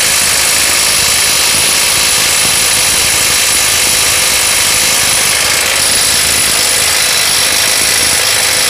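Bull BL800NM 21 V cordless impact wrench hammering steadily without a break on a bolt tightened to 900 Nm, above its rated 800 Nm.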